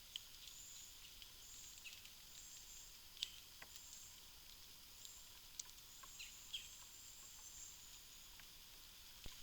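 Faint outdoor ambience: insects give a high chirping that comes and goes about once a second, with scattered soft clicks and ticks, the sharpest about three seconds in.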